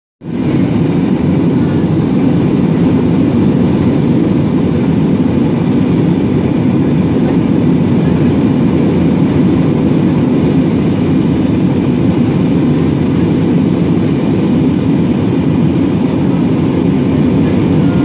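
Steady cabin noise of an Airbus A320-family airliner in flight, heard from inside the cabin at a window seat: a constant low rumble of the engines and airflow with a fainter hiss above it.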